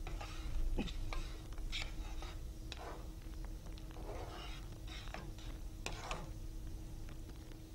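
Steel spoon stirring thick tomato-onion gravy in a non-stick kadai: a few faint scrapes and taps against the pan, scattered through, over a steady faint hum.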